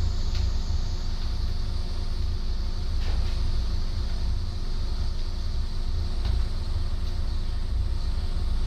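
Wood fire burning in a cast-iron stove: a steady low rumble with a few faint crackles.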